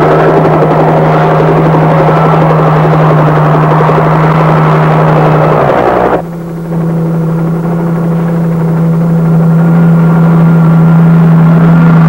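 Bell UH-1 Huey helicopters running close by: a loud, steady drone of turbine and rotor with a constant low hum. About six seconds in, the rushing noise cuts off abruptly, leaving the steady hum.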